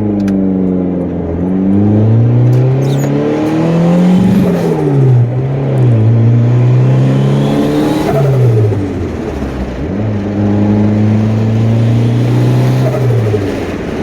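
Turbocharged Honda Accord engine pulling under acceleration: the revs climb, drop sharply at a gear change about four and a half seconds in, climb again, fall back around eight to nine seconds in, then hold steady before easing off near the end.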